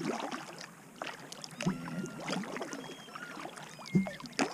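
Kayak paddling on calm water: paddle blades dipping and dripping with a light splash on each stroke, and two hollow knocks about 1.7 s and 4 s in, the second the loudest.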